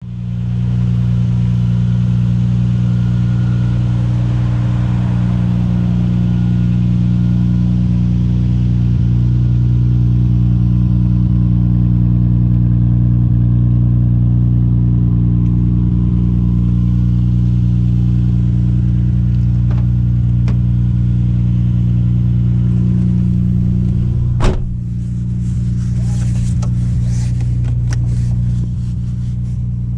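Nissan Skyline R34 GT-R's RB26DETT straight-six idling steadily through a custom 3-inch exhaust, holding one even note with no revving. A single sharp knock comes about 24 seconds in, after which the engine sounds a little quieter.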